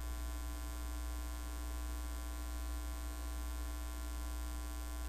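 Steady electrical mains hum with a constant hiss; nothing starts or stops.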